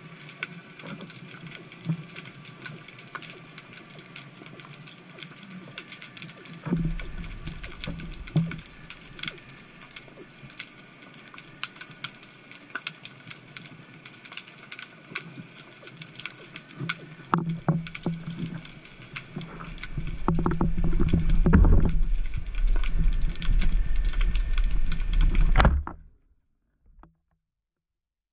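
Underwater sound picked up through a GoPro's waterproof housing: a steady crackle of small clicks with occasional muffled knocks. A louder low rumble comes in about twenty seconds in, and the sound cuts off suddenly a couple of seconds before the end.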